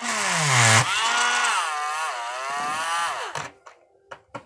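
Cheap rotary tool with a diamond ball burr grinding into a stone under water. It is pushed hard, so its motor bogs toward a stall: the whine drops sharply in pitch, then wavers up and down under the changing pressure. It stops abruptly about three and a half seconds in.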